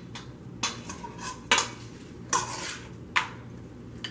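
Serving spoon and fork scraping and clinking against a stainless steel mixing bowl and ceramic plate as dressed salad is lifted out and served, with several sharp clinks about a second apart.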